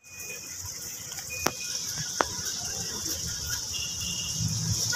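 Ambience around a cage of pigeons: a steady high-pitched hiss with a few faint short chirps, and two sharp clicks about a second and a half and two seconds in.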